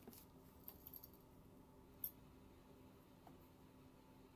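Near silence with faint eating sounds from a metal spoon at a boiled egg: a few soft clicks about a second in and one sharp tick about two seconds in, over a faint steady hum.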